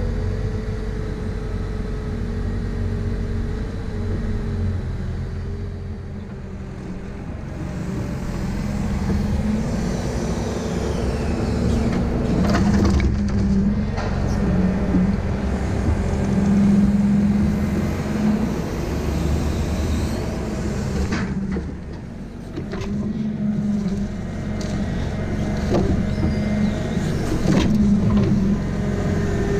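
Valmet 840 forwarder's diesel engine running under crane work, its hum swelling and easing as the hydraulics take load. A few short knocks come as logs are handled in the grapple.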